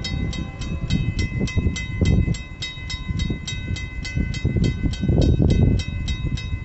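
A railroad bell ringing steadily at about four to five strokes a second, stopping near the end, over the low rumble of an approaching train.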